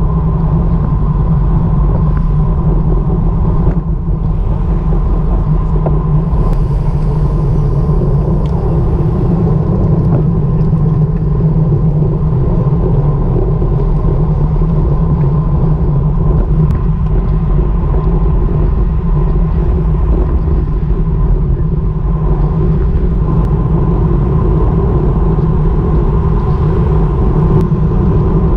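Wind buffeting the microphone of a GoPro Hero5 Session on a road bike riding at speed: a loud, steady low rumble.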